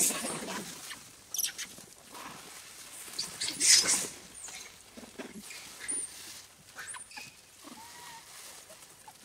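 Macaques squealing and squeaking in short, irregular high-pitched bursts amid scuffling, loudest a little under four seconds in, with a few thin high squeaks later on.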